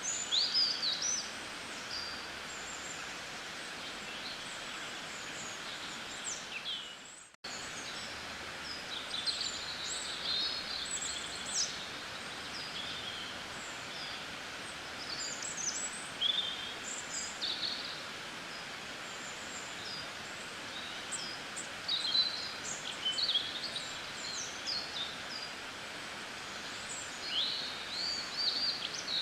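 Many small birds chirping and trilling in quick, sharp calls over a steady outdoor hiss. The sound fades out about seven seconds in and cuts straight back in.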